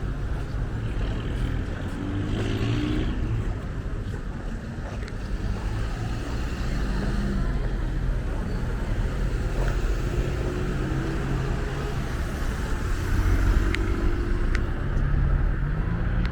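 Street traffic: a steady low rumble of motor vehicle engines running, with short engine-pitch rises a couple of seconds in and again around ten seconds, and a few faint clicks near the end.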